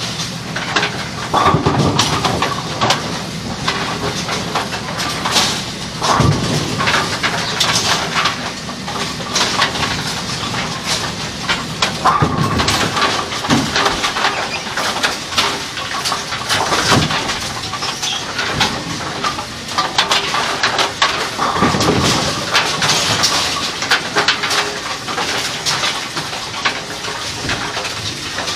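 Kegel Pin Shine bowling-pin cleaning machine running steadily, with irregular knocks and scrubbing as bowling pins are worked in its sudsy tub.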